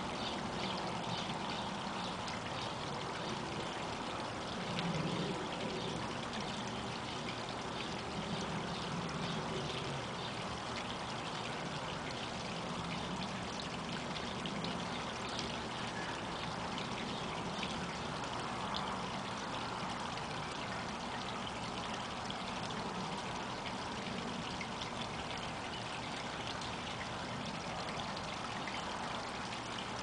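Small garden waterfall: water spilling over stacked flat stones into a shallow pool in a steady trickle.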